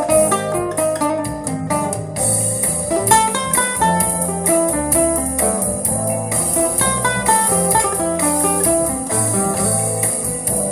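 Acoustic guitar improvising a quick single-note melody over an A minor seven / C minor seven backing track with a steady beat.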